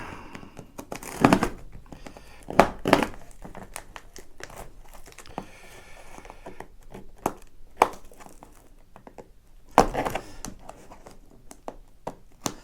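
Cardboard box being opened, its seals slit with a ceramic knife: scattered sharp knocks and handling noise, with packaging crinkling and tearing.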